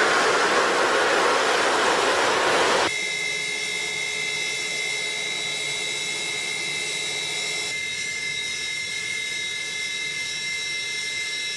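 Fighter jet engine running on the ground: a loud, even rushing noise for about three seconds, then an abrupt change to a quieter steady run with a high whine.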